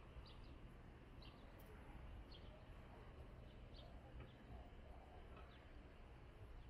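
Near silence with faint bird chirps, short and high, repeated every half second or so over a low, steady rumble.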